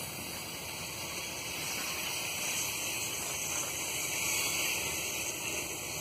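Long freight train of loaded open ore wagons rolling past, a steady noise of steel wheels running on the rails. It gets a little louder and hissier about halfway through.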